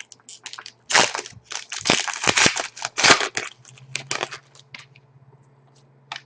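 Trading cards and pack wrappers being handled, with a run of dense crinkling and rustling strokes in the middle, then a few light clicks. A faint steady low hum sits underneath.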